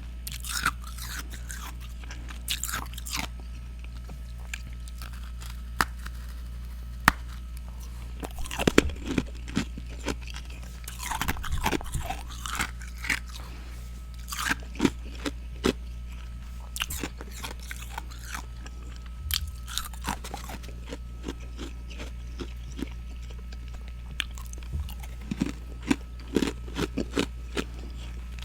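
Close-up crunching and chewing of freezer frost, with irregular bites and crunches that come in clusters and quieter gaps between them, over a steady low hum.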